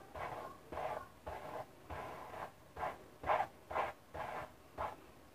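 A brush drawn again and again through boil-washed kanekalon synthetic braiding hair, sleeking it out: short swishing strokes about two a second.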